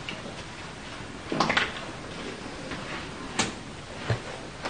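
A few scattered knocks and clicks: a short rustling scrape about a second and a half in, a sharp click about three and a half seconds in, and a dull thump near the end.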